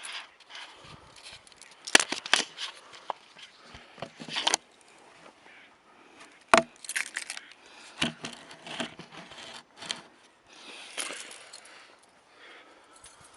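Camera handling noise: scattered knocks, clicks and rustling as the camera is carried and set in place, with a few sharper knocks about two seconds in and again a little past six seconds.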